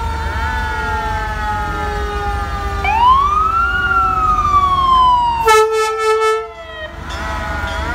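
Fire engine and ambulance sirens sounding together in several overlapping wails. About three seconds in, one siren winds up sharply and then slowly coasts down. Near the end, a horn blasts for about a second.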